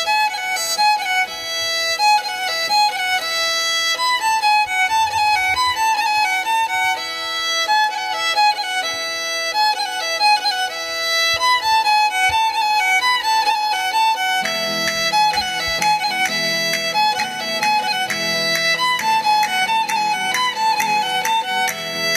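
Violin playing a quick melody over a steady held note. About two-thirds of the way through, a lower accompaniment joins in and the music becomes fuller.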